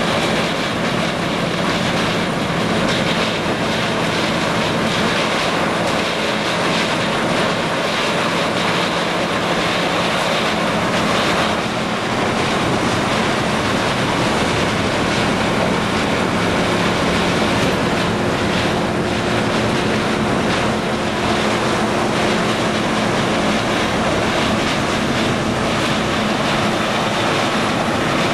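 Steady, unbroken machine noise from a Balemaster auto-tie cardboard baler and its air-conveying system running, with a couple of faint steady hums under it.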